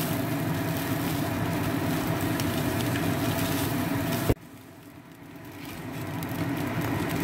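Vegetable fried rice sizzling in a hot pan while it is stirred, with small clicks of the spatula against the pan. About four seconds in, a sharp click and the sound cuts off abruptly, then it slowly swells back up.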